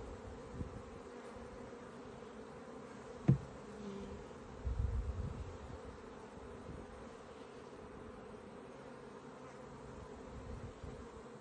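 A swarm of honeybees buzzing steadily around an opened hive, with one sharp knock about three seconds in.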